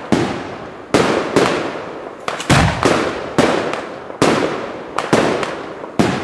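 Aerial firework shells going off: about a dozen sharp bangs in quick succession, each trailing away in an echo.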